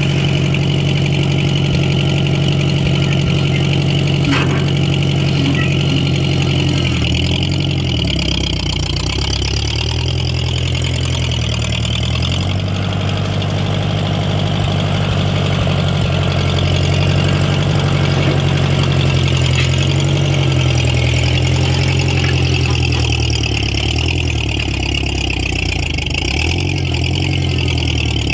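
Ford 8N tractor's four-cylinder gasoline engine running steadily, its speed sagging and picking back up several times.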